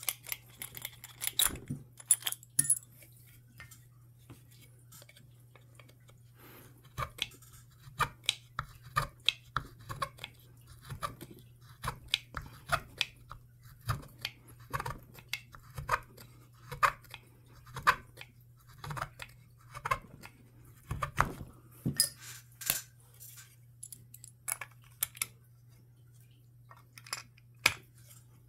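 Short, irregular scrapes and clicks, about one or two a second, of wood being shaved by hand from the trigger-guard inlet of a wooden pistol stock, with the brass trigger guard being tried in the inlet and taken out again. A low steady hum runs underneath.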